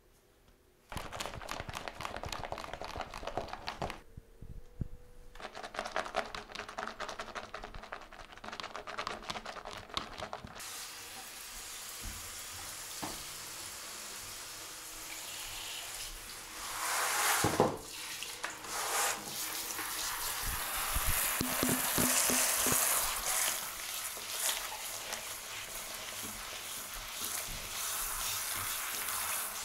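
Water from a handheld shower head spraying onto a cat and splashing on the bath cover: two short spells of crackly spattering in the first ten seconds, then a steady hiss of running spray that swells louder a few times.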